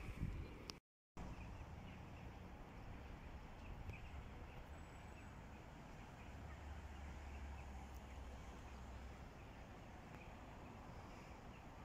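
Outdoor ambience: a steady low rumble with faint bird chirps now and then, broken by a brief silent gap about a second in.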